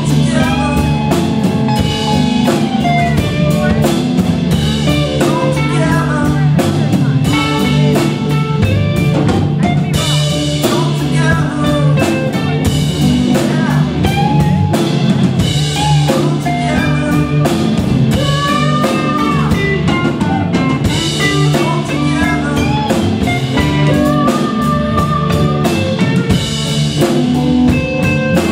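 A live rock band playing an instrumental passage on electric guitars, bass and drum kit, with a lead guitar line of bending notes over a steady beat.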